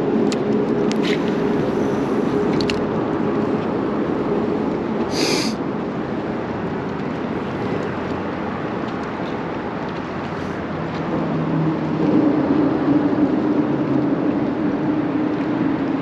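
Bow-mounted electric trolling motor humming steadily over wind and water noise; about twelve seconds in its hum drops in pitch and gets louder.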